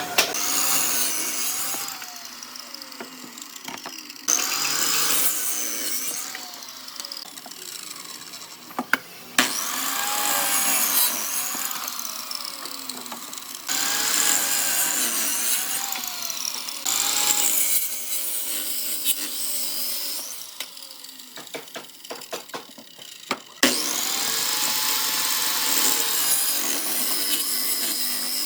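Power tool cutting into wood in repeated runs of a few seconds, its motor whine dipping and recovering in pitch as it bites, with quieter pauses between runs and a short patter of clicks a little past the middle.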